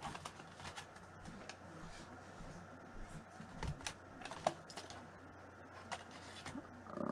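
Faint, irregular clicking of typing on a laptop keyboard, a few keystrokes louder than the rest.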